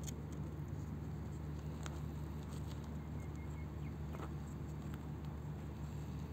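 Faint scattered ticks and scrapes of a mole's claws scrabbling over loose gravel, under a steady low hum.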